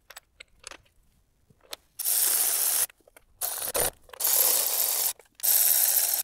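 Socket ratchet wrench clicking as it runs the intake manifold bolts down, in four strokes of close to a second each starting about two seconds in, after a few light clicks of the bolts being started.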